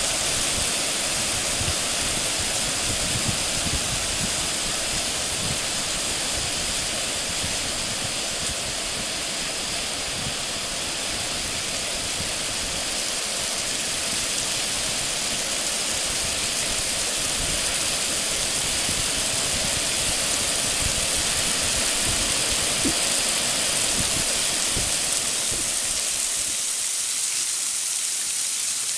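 Waterfall: a steady, even rush of falling water, with low irregular rumbling underneath that drops away near the end.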